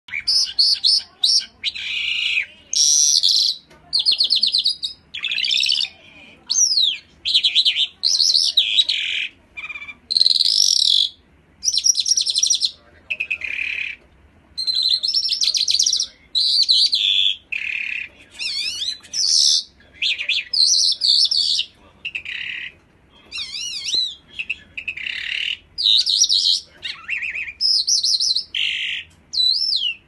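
Small caged songbird singing a long, unbroken run of high, varied phrases, warbles and fast trills, each a second or so long with short pauses between.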